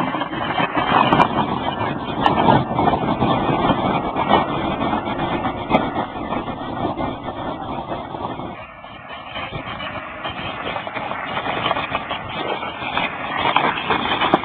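Home-converted electric car driving over a gravel drive, its tyres crunching and rumbling, with no petrol engine running. The noise eases for a moment about two-thirds of the way in.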